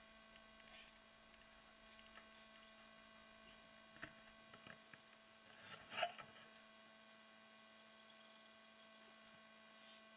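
Near silence with a steady electronic hum of fixed tones. A few faint clicks come around four to five seconds in, and a short louder noise about six seconds in.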